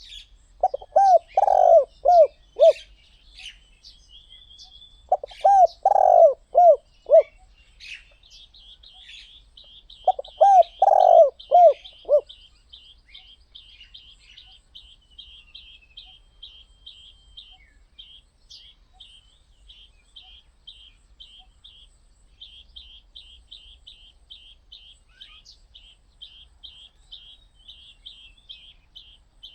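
Spotted dove cooing: three loud phrases of four or five low coos, about four seconds apart in the first half, then it falls silent. A faint, fast, high chirping of another small bird runs throughout.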